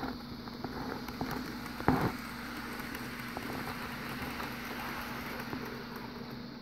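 Walthers HO scale subway train running along the track: a steady rolling rattle of small wheels on rail with a steady hum under it, and a sharp click about two seconds in.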